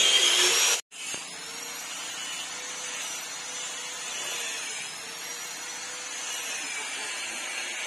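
A workshop power tool running steadily: a hiss with a faint, slowly wavering whine. It is louder at first, breaks off briefly just under a second in, then carries on quieter and more even.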